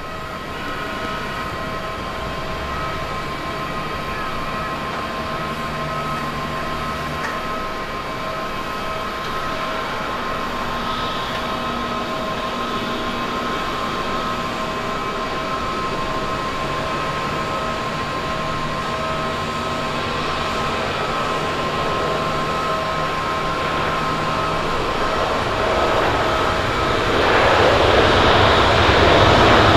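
Japan Airlines Boeing 777-300ER's twin GE90 turbofan engines on landing: a steady jet whine with a few held high tones over a low rumble. The noise grows louder and rougher near the end as the airliner rolls along the runway.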